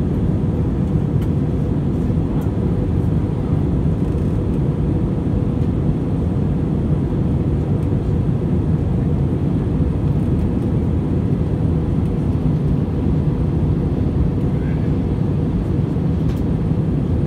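Steady drone of a jet airliner's cabin in flight, heard from a window seat by the wing: a deep, even rumble of engines and airflow with a faint steady hum above it.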